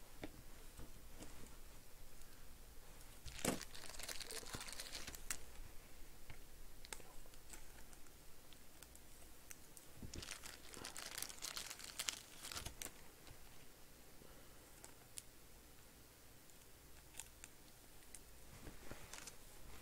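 Faint crinkling and rustling of plastic trading-card wrappers and sleeves being handled, in two stretches about three to five seconds in and ten to thirteen seconds in, with scattered small clicks between.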